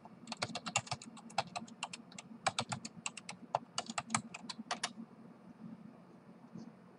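Typing on a computer keyboard: a quick, uneven run of key clicks, as a username and password are entered, that stops about five seconds in.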